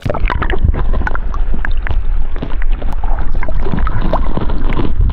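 River water heard from a camera plunged underwater: a loud, muffled low rumble of flowing water with many small clicks and gurgles. It starts abruptly as the camera goes under.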